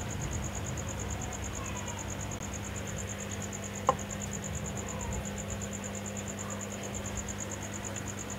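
A cricket chirping steadily in a fast, even pulse over a low steady hum. About four seconds in, a single sharp knock as a jar is set down on the workbench.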